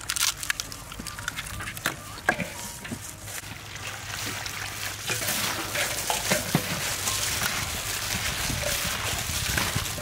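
Eggs cracked into a metal bowl of flour and shredded carrot, with a few sharp clicks in the first seconds. Then hands mix the batter, a dense crackly rustle from about four seconds in.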